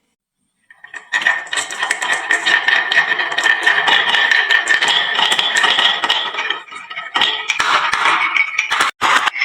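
Many marbles rolling and clattering down a wooden marble-run slope: a dense, loud rattle of small clicks over a steady rolling ring, starting about a second in and breaking off briefly near the end.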